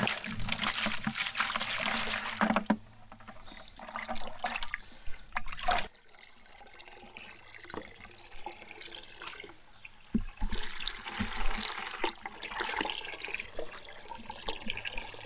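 Garden hose running water into a plastic bucket. The stream splashes loudly into the bucket in the first couple of seconds, then turns to a quieter fill with the hose end down in the bucket, and splashes louder again about two-thirds of the way through.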